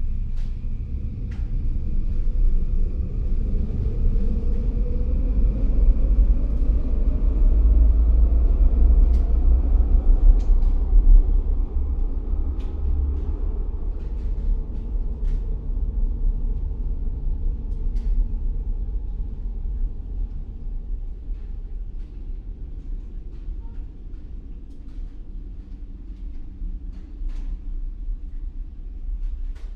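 A large vehicle passing with a heavy rumble and a whine that rises in pitch over the first several seconds; the rumble is loudest about eight to eleven seconds in and then fades away, with scattered small clicks and knocks.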